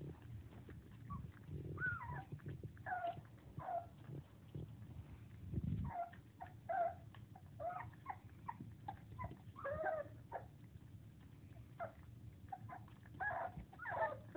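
Young English Springer Spaniel puppies, about four weeks old, whining and squeaking in many short high calls that bend in pitch, coming in clusters, with a couple of low thumps.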